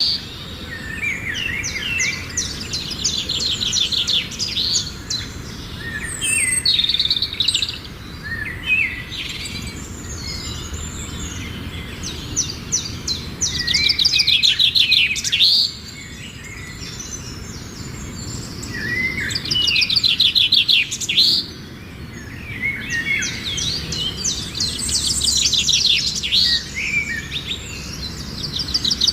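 Birds singing and chirping: bursts of rapid trills and short calls, each a second or two long, repeated with brief pauses between them, over a low steady background noise.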